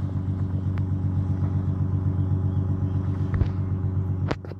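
Small boat's engine running steadily, an even low hum with a fast regular pulse; it drops in level near the end.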